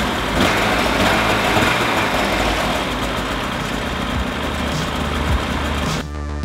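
Polaris Axys snowmobile's two-stroke engine running steadily through its stock exhaust, for a before-and-after loudness comparison. It swells a little about half a second in. About six seconds in it cuts off and music takes over.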